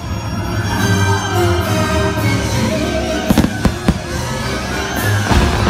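Fireworks show: show music plays with steady sustained tones while aerial shells go off as sharp bangs, three in quick succession about three and a half seconds in and another near the end.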